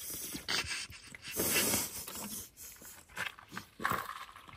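A person drinking from a large plastic water bottle, gulping, with several short breathy exhales.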